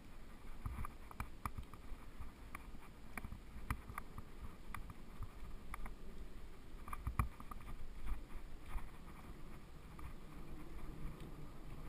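Mountain bike rolling along a gravel track: a steady low rumble from the tyres, broken by irregular sharp rattles and clicks as the bike jolts over the stones.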